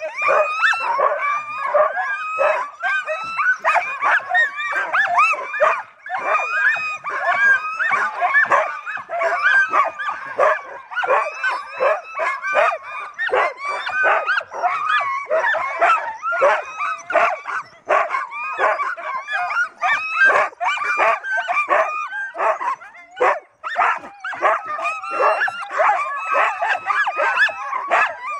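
A team of harnessed sled dogs barking and yelping nonstop, many voices overlapping, keyed up and eager to start their run.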